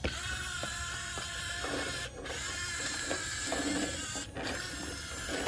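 A small electric motor whining steadily, cutting out briefly twice.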